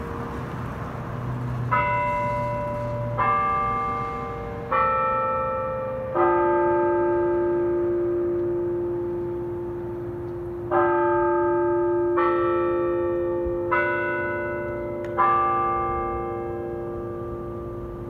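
Schulmerich church bell system in the tower chiming a tune of eight bell notes, in two phrases of four struck about a second and a half apart, with a pause of several seconds between the phrases. Each note rings on and overlaps the next.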